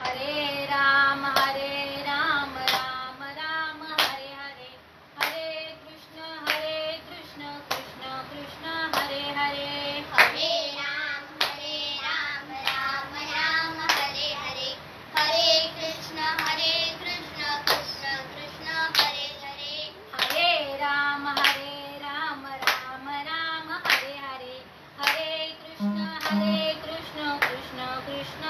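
A woman singing a devotional song unaccompanied, keeping time with slow, even hand claps, about one clap every 1.3 seconds, her held notes wavering between them.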